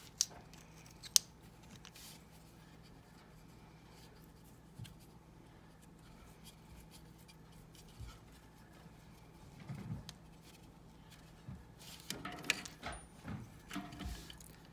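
Faint clicks and rubbing of hands twisting stranded electrical wires together and screwing plastic wire nuts onto the splices, busier toward the end.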